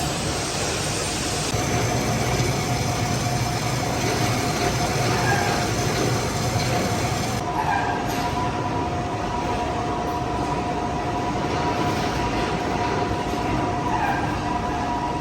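Metal lathe running while turning a bronze bush, a steady mechanical noise with a constant whine; a second, higher whine joins about halfway through.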